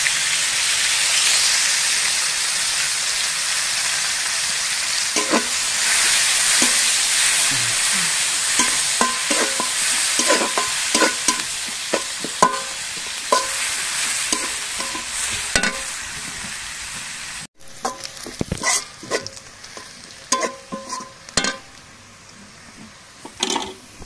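Chopped onions sizzling in hot oil in a large metal karahi, with a metal spatula scraping and clinking against the pan as they are stirred. The sizzling drops away suddenly about two-thirds of the way through, leaving quieter spatula scrapes and clinks.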